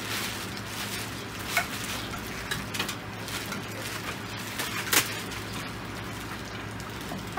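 Plastic wrapping rustling and crinkling as a paddle is pulled out of it, with a few short sharp clicks and knocks, the loudest about five seconds in.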